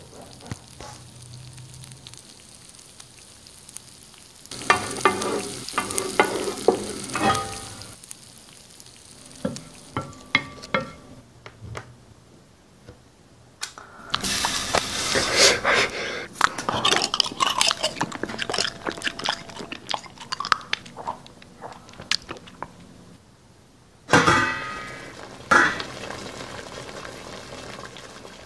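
Close-miked cooking sounds: sizzling like food frying, with clicks and scrapes of a utensil stirring in a small pot. It comes in three spells, the last starting suddenly near the end.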